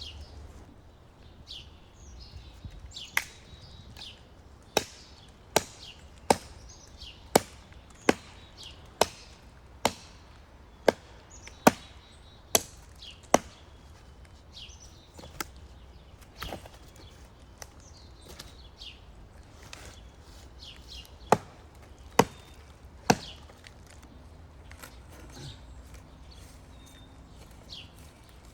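Wood being chopped: a run of about a dozen sharp blows roughly a second apart, then a pause, then three more blows near the end.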